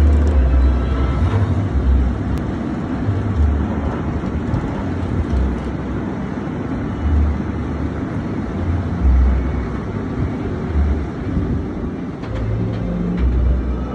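Steady mechanical rumble from a steel dive roller coaster as its train climbs the lift hill and crests the top, with irregular low rumbles throughout.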